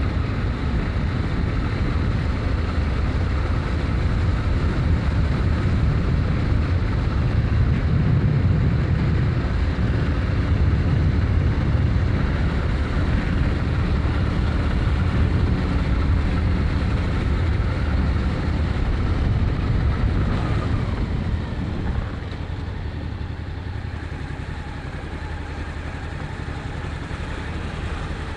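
Honda XRV750 Africa Twin's V-twin engine running as the motorcycle rides along. About 20 seconds in the engine note falls, and from about 22 seconds it is quieter.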